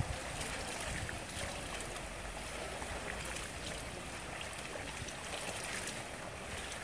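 Steady wash of water noise with faint splashes from a swimmer's strokes in an outdoor pool.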